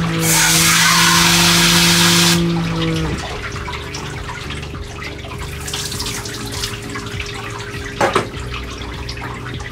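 Water spraying from a hand-held hose sprayer in a stainless-steel grooming tub, with a steady hum underneath. The spray cuts off about two and a half seconds in and the hum half a second later. After that it is quieter, with a short knock about eight seconds in.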